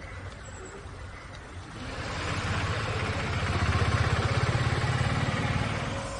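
A motor vehicle passes close by: its engine and a hiss build from about two seconds in, are loudest around four seconds, then fade.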